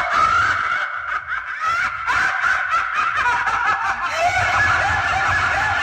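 Sound-system sound check: loudspeakers play a rapid run of short, squeaky chirping notes, and a low bass pulse comes in about four seconds in.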